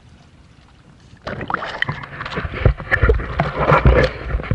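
Water splashing and sloshing against a small wooden outrigger canoe, with irregular knocks and thumps on the hull, as a diver in the water grabs hold of the boat. This starts about a second in, after a short quiet spell.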